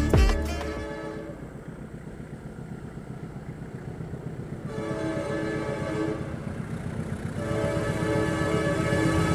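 Diesel locomotive approaching and sounding its multi-tone horn twice: a blast of about a second and a half near the middle, then a longer one from about eight seconds in. Under the horn, the train's low rumble grows louder as it nears.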